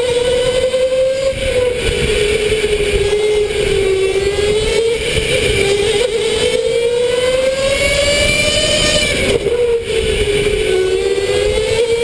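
Electric go-kart motor whining, its pitch rising and falling with the kart's speed. It climbs slowly and then drops sharply about nine seconds in as the kart slows for a corner, before climbing again. Under it is a steady rumble from the kart rolling on the track.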